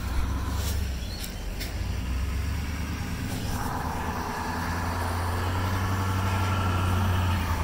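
A motor vehicle's engine running steadily, with a few sharp clicks in the first two seconds and a higher hum joining in about halfway through.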